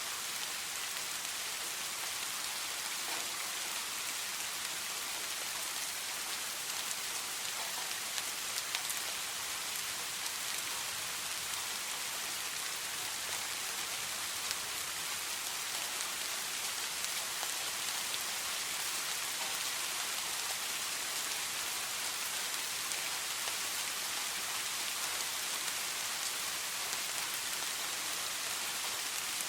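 Steady rainfall: an even hiss of falling rain with scattered individual drops ticking on a surface.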